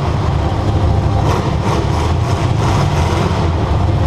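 Demolition derby car's engine running steadily and loudly, most of its sound low-pitched, heard from on board the car.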